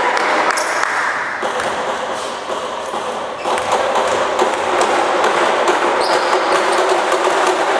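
Basketball game din in a gymnasium: steady crowd and player chatter echoing in the hall, with scattered thuds of a basketball and sneakers on the court. It grows louder about three and a half seconds in.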